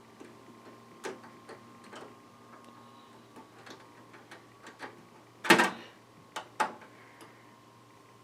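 Scattered light clicks and taps of hands working at a computer, with a louder clatter about five and a half seconds in and another sharp knock a second later, over a faint steady hum.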